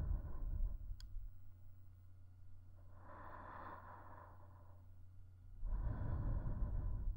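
A woman's slow, long breaths right at a binaural dummy-head microphone: three breaths a few seconds apart, over a faint steady low hum, with a faint click about a second in.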